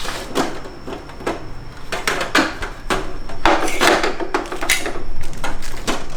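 Parts of a Vision bird cage being handled: a quick irregular run of clicks, knocks and short scrapes, as the cage's doors and the dishes are worked.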